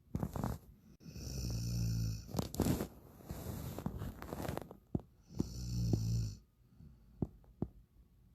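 Heavy snoring from a sleeper, three long rattling breaths with a low buzz, separated by short snorts and pauses.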